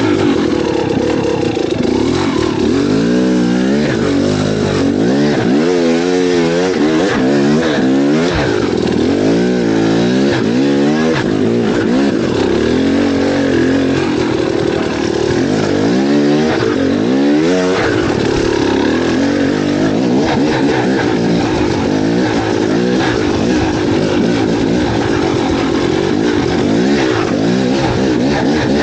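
An engine revving up and down over and over, about once a second, through the first half, then running more steadily.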